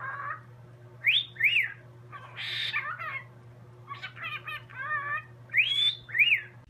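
A bird calling in a series of whistled notes that slide up and down, with a harsh screech about two and a half seconds in and a warbling chatter near the middle. A steady low hum runs underneath.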